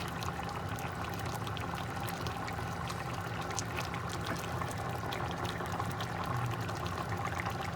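Pot of curry broth boiling hard, a steady bubbling with fine crackles over a low steady hum.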